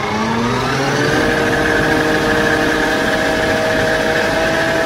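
Kubota M7-173 tractor running, a steady engine note with a whine on top whose pitch creeps up slightly.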